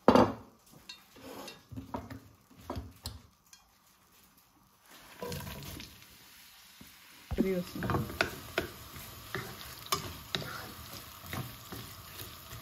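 A knock of the pan and a few clatters, then sliced onions tipped into hot oil in a wok start to sizzle, loudly from about seven seconds in, with clicks and scrapes as they are stirred around in the pan.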